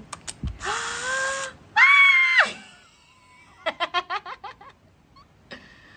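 A young woman squealing with excitement twice, the second squeal louder and high-pitched, then a short burst of laughter.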